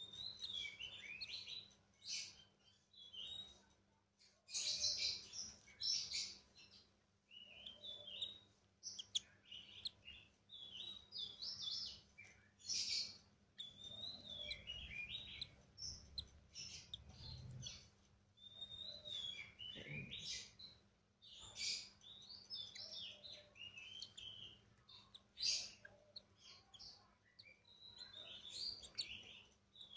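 Lovebird chicks giving repeated high, scratchy begging chirps in irregular bursts, the calls of young birds wanting food.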